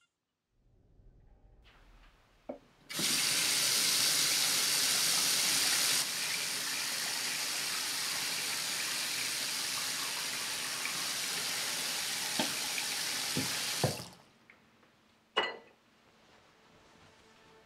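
Bathroom sink tap running steadily for about eleven seconds, then shut off, turned a little lower a few seconds after it starts. A few short clicks and knocks come just before it and around the shut-off.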